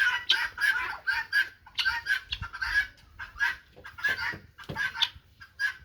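A flock of guinea fowl calling: a dense run of short, harsh, repeated calls, several a second, overlapping one another.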